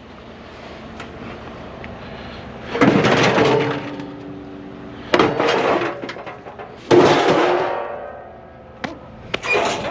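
Scrap metal crashing and ringing, likely the steel top of a 55-gallon drum thrown onto a load of scrap. There are three clattering crashes about two seconds apart, the third the loudest, and each leaves a metallic ring that fades over a second or so.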